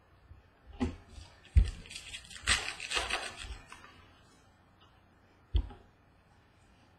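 Baseball trading cards being handled at a desk. There are a few sharp knocks as cards are set down or tapped against the tabletop, the loudest about a second and a half in and another late on. In the middle is a rustle of cards sliding against each other.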